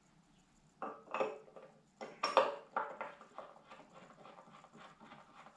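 Metal clinks and knocks from a screwdriver and the StarSense camera's mounting bracket on top of a Celestron EdgeHD 11 telescope tube as the bracket is screwed down. A few sharp clinks come in the first half, the loudest about two seconds in, then a run of small quick ticks as the screw is turned.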